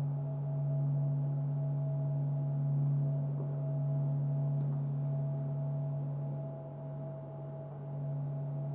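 A steady, low, humming drone with a few fainter held tones above it, slowly swelling and easing off: the raw NASA sonification of the Sun used as an eerie soundtrack.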